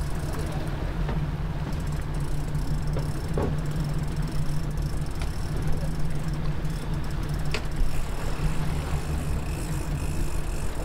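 A sportfishing boat's engines drone steadily at trolling speed, with wind and water noise over them.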